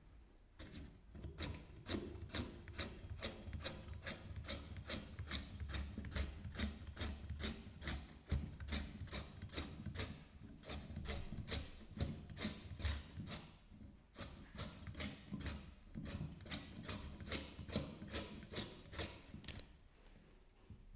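A carrot being slid back and forth over the blade of a stainless steel handheld vegetable slicer, each stroke a short scrape as a slice is cut off, about two and a half strokes a second, with a brief pause about two-thirds of the way through.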